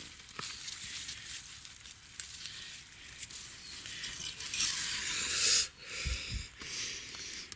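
Dry grass and forest litter rustling and crackling with small clicks as a mushroom is pulled from the ground and undergrowth brushes past, loudest around five seconds in. Two dull low thumps follow just after.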